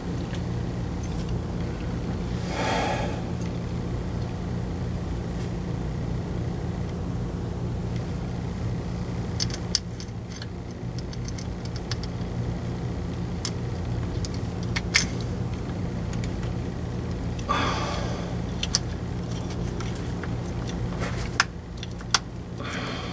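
Light metal clicks and taps as the governor pressure solenoid and sensor housing of a Jeep 44RE automatic transmission is handled and fitted into place, over a steady low hum; two brief swishing noises come about three seconds in and again past the middle.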